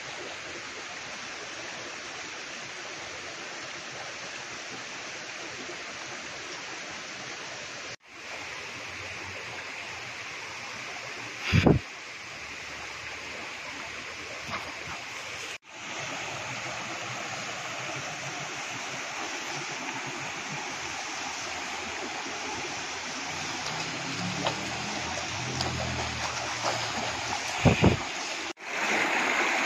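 Steady rushing of a shallow river flowing over stones, with two brief low thumps.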